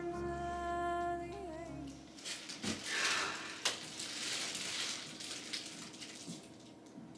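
A held musical note with a deep bass ends about two seconds in. Then clear plastic wrap on a large vanity mirror crinkles and rustles as it is handled, with a sharp click partway through.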